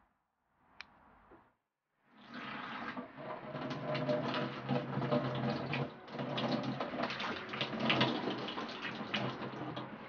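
Kitchen tap running a stream of water onto fresh mint leaves held in a cupped hand, splashing steadily with many small drips and spatters; it starts about two seconds in. Before it, a single sharp snip from scissors cutting mint stems about a second in.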